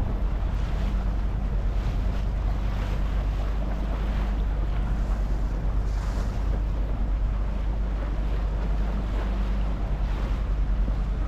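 A boat's engine running steadily under way, with water washing along the hull and wind buffeting the microphone.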